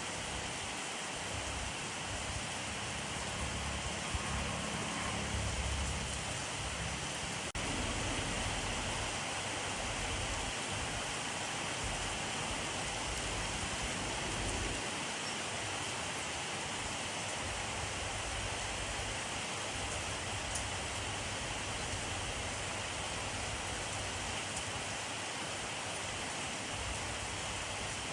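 Steady rainfall, an even hiss of many drops. A low rumble swells briefly about five seconds in.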